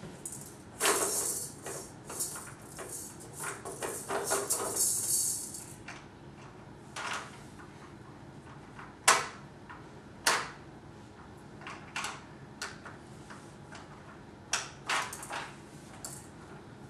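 A plastic baby walker's activity panel clicking and rattling as a baby handles its buttons and spinners: a run of rattling in the first six seconds, then single sharp clicks every second or two.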